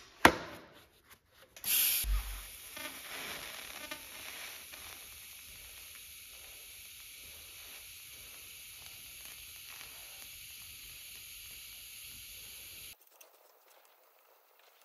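TIG welding arc on a steel roller end, laying the root pass with a hand-fed filler rod. There is a short loud burst about two seconds in, then a steady sizzling hiss that stops suddenly near the end.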